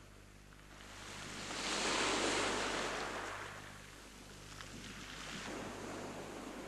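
Sea waves washing on the shore: one wave swells to a peak about two seconds in and dies away, followed by a softer wash.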